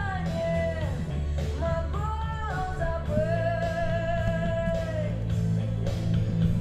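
Female vocalist singing a slow song over a steady low bass backing, holding long notes; the longest is held from about three to five seconds in.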